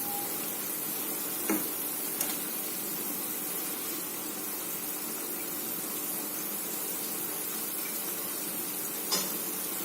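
Maggi noodles cooking in a pan of masala liquid on the stove, a steady sizzling hiss, with a few faint ticks.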